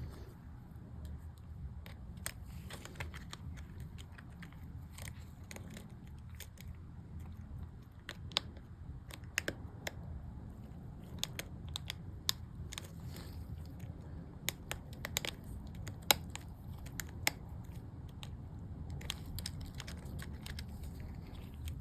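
Irregular small plastic clicks and snaps as replacement MacBook keycaps are pressed onto their keyboard clips, over a low steady hum.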